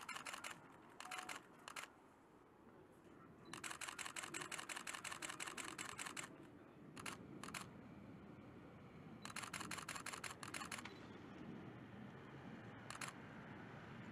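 Rapid bursts of sharp clicks, about ten a second, typical of a camera shutter firing in continuous burst mode. There are long runs about three and a half seconds in and about nine seconds in, with shorter runs between, over faint low background noise.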